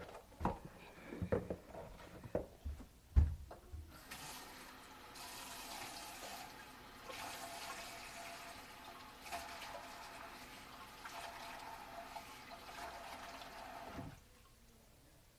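A few knocks and clatters, then water from a tap runs steadily for about ten seconds, used to rinse pepper out of stinging eyes, and is shut off suddenly near the end.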